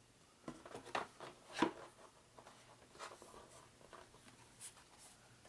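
Faint scraping and a few soft taps of thick cardboard game map tiles being handled, slid and set down.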